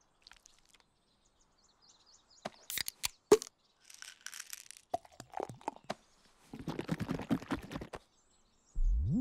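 Cartoon sound effects: scattered clicks and one sharp crack, then pills rattling out of a bottle into a rabbit's mouth about four seconds in, followed by a busy run of small noises. Music comes in with a rising note just before the end.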